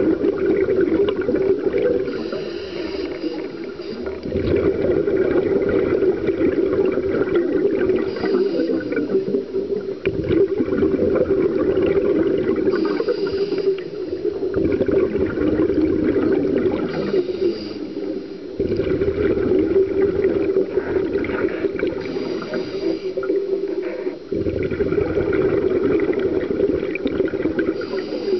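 Scuba regulator breathing heard underwater through a camera housing: a short hiss of inhalation about every five seconds, with bubbling exhalations between.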